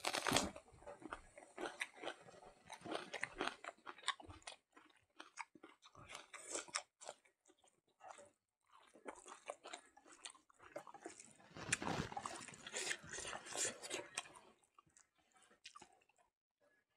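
A person chewing mouthfuls of smoked pork leg and rice, eaten by hand, close to the microphone: irregular bouts of wet, crackly chewing with short pauses. The loudest bout comes just after the start, and another comes about two thirds of the way in.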